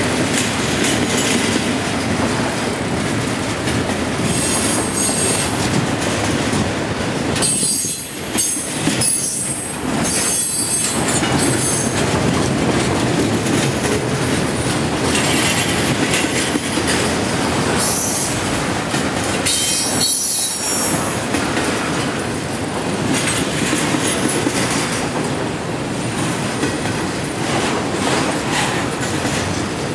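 Double-stack intermodal freight train's well cars rolling past, a steady rumble of wheels on rail, with high-pitched wheel squeal coming and going several times.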